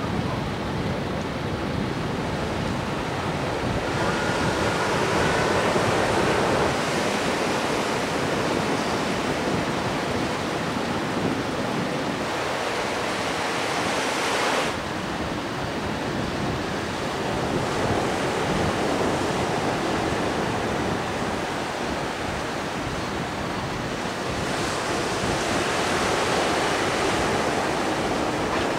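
Surf breaking and washing up a beach, with wind buffeting the microphone. The sound shifts abruptly about halfway through.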